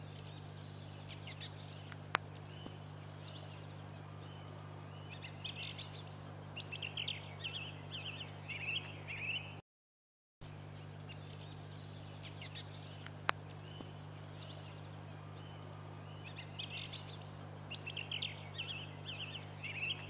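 Song thrush singing, with short phrases of notes repeated several times, over a steady low hum. There is a sharp click about two seconds in. The sound drops out briefly near the halfway point, and then the same stretch of song plays again, click included.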